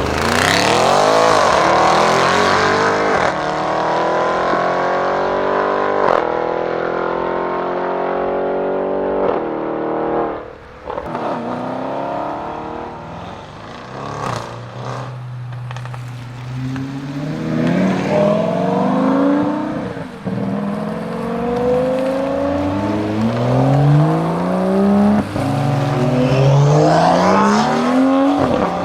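Audi RS6 Avant C7's twin-turbo V8 through a Milltek exhaust, revving hard. The engine note climbs sharply at the start, then falls for several seconds. A few sharp cracks come in the quieter middle, and near the end there is a run of rising pulls, one after another, as it accelerates through the gears.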